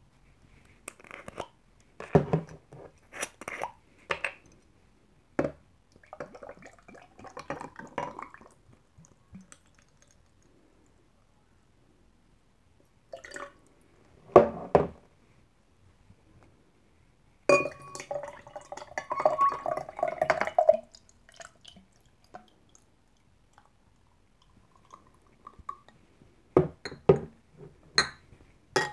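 Basil seed drink poured from glass bottles into two glasses, one of them full of ice, in two pours, the second and longer one past the middle. Sharp clinks and knocks of bottles, caps and glass come between the pours.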